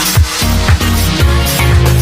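Electronic dance music with a steady kick drum at about two beats a second and a bass line.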